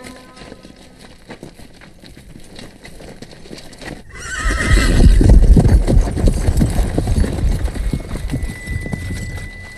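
Horses galloping: a horse whinnies about four seconds in, then a dense run of hoofbeats starts up. The hoofbeats are loudest just after the whinny and ease off toward the end. Before that there is only a quieter scattered clatter.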